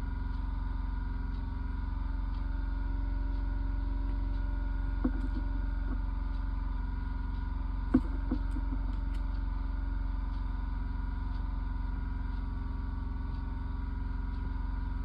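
A steady low hum runs throughout, with a few light taps about five and eight seconds in.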